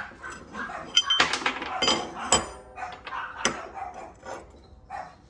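Machined steel parts being handled, clinking and clattering against each other and metal. A dense run of ringing knocks comes about a second in, and one more sharp clink comes past the middle.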